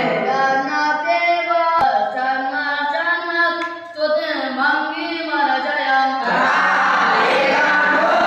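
Group of young Brahmin students chanting the evening aarti in unison. There is a single sharp click about two seconds in, and the voices sound fuller from about six seconds in.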